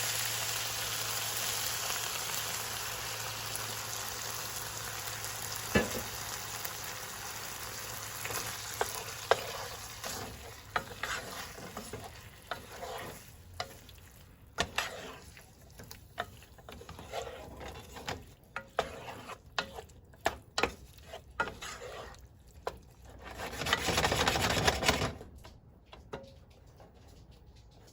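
Food sizzling in oil in a frying pan while it is stirred, with a utensil knocking and scraping against the pan. The sizzle dies down over the first ten seconds or so; a louder hiss of about a second and a half comes near the end.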